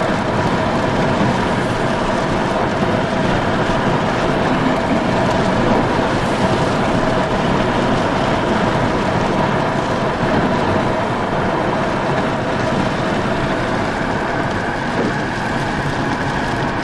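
Car driving at road speed, heard from inside the cabin: steady tyre and engine noise with a steady whine running through it.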